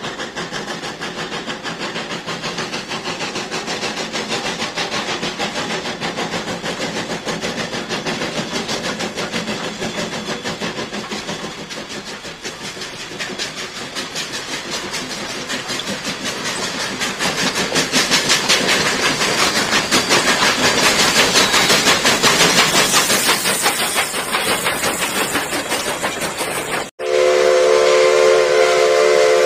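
Steam locomotive working toward the camera, its exhaust chuffing in a fast, even beat over steam hiss, growing louder as it nears. After an abrupt cut near the end, a steam whistle sounds a steady chord of several notes.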